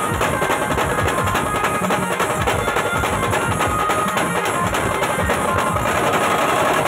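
Procession band music led by several double-headed dhol drums beaten together in a fast, steady rhythm, loud and continuous.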